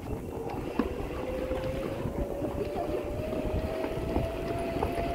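Wind buffeting the microphone and road rumble from a moving bicycle, with scattered small rattles. Over this runs a steady whine that slowly rises in pitch.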